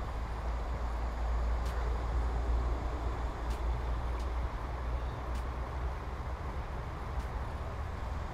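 Steady rushing of a shallow river running over stones, with a deep rumble underneath and a few faint clicks.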